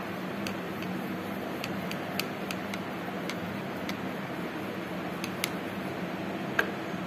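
Paintbrush working paint in a plastic palette well, giving small irregular clicks and taps, the sharpest near the end, over a steady background hum and hiss.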